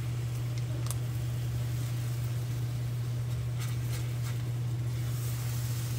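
A steady low hum over a faint hiss, with a few light clicks of a spatula against the pan as mango purée is poured into the simmering mixture.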